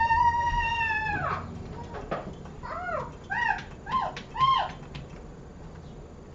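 A domestic cat meowing: one long, drawn-out meow, then four short meows in quick succession about three seconds in.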